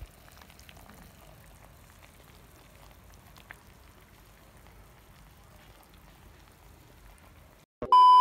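Pot of pork nilaga simmering: faint, steady bubbling with light scattered crackles. Near the end a sharp click, then a loud, steady test-tone beep starts.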